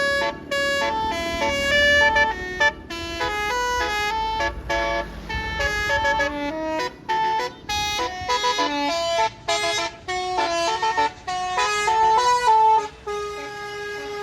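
Bus telolet horn (Basuri multi-tone horn) playing a fast melody of short stepping notes in several phrases with brief gaps between them, over a low rumble midway.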